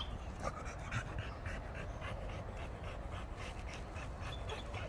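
American Pit Bull Terrier panting hard and fast, an even train of quick breaths, from exertion after digging and tearing at roots.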